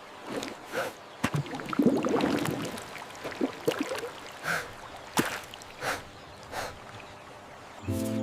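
Water splashing and sloshing in a run of short splashes, over a light running-water hiss, with a louder churning splash about two seconds in.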